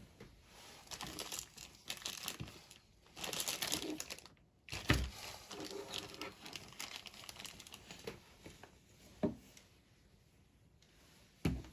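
Rummaging and handling things on a work surface: irregular crinkling and rustling, with a few sharp knocks about five seconds in, near the end, and just before it.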